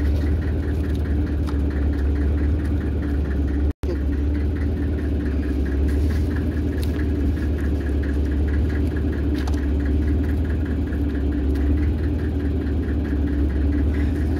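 Fishing boat's engine running steadily: a constant low drone with a quick, even ticking on top.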